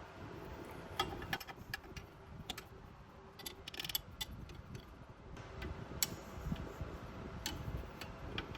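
Wrench and metal fittings clicking and tapping while rear drum-brake lines are undone: scattered sharp clicks, with a quick run of clicks about three and a half seconds in.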